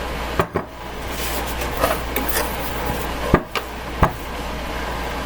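A few sharp knocks and clatters of kitchen bowls being handled and set down, over a steady low hum.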